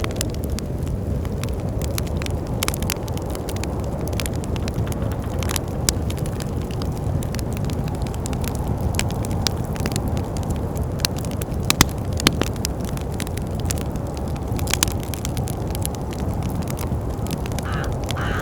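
Wood fire crackling, with frequent sharp pops and a few louder ones about two-thirds of the way through, over a steady low rumble of wind.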